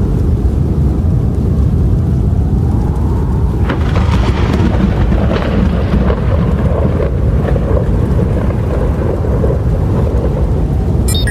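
Strong blizzard wind: a steady, heavy low rumble with a gust that swells into a louder hiss about four seconds in and dies back after a few seconds.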